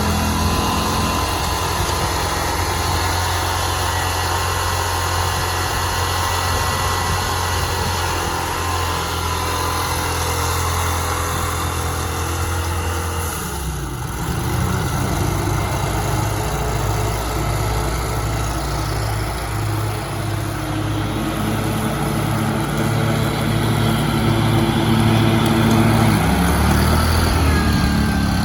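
John Deere riding lawn mower engine running steadily. About halfway through, its pitch dips and settles into a different, pulsing note, and near the end the engine speed rises again.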